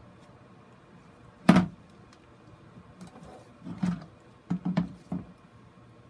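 A plastic planting grid knocking and clattering against a hard plastic box as it is lifted, turned and set back down: one sharp knock about a second and a half in, then a cluster of lighter clacks near the end.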